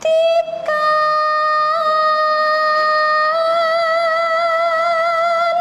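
Background music: one long high note held, briefly breaking and restarting near the start, with vibrato coming in about halfway through.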